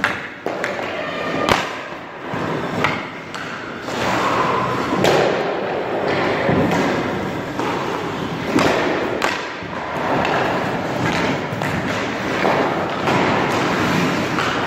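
Ice hockey shooting practice: several sharp cracks of stick on puck and thuds of pucks hitting the goalie's pads, with skate blades scraping the ice in between.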